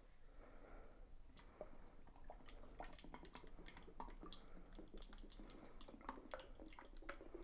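Half-and-half pouring from a carton spout into a glass measuring cup: faint, irregular glugging and splashing of the liquid.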